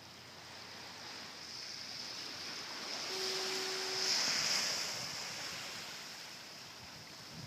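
A rushing noise that swells for about four seconds, peaks and fades away again, over a steady high hiss. A short steady hum joins it for about a second near the middle.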